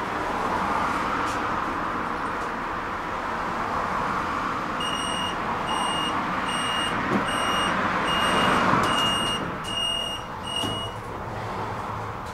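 Tram running along its track, a steady rumble and hiss of wheels on rails. About five seconds in, a high electronic beep starts repeating, eight beeps a little under a second apart, then stops.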